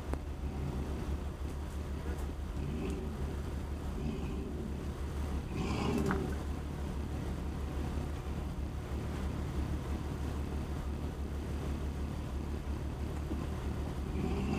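A Jeep's engine running steadily at low revs while crawling along a dirt trail, heard close up from the hood, with a brief louder noise about six seconds in.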